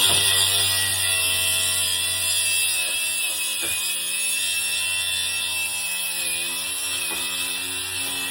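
Angle grinder running with a steady high whine and a lower hum, cutting off the ends of electrical conduit and wire; the pitch dips briefly a few seconds in as the disc loads.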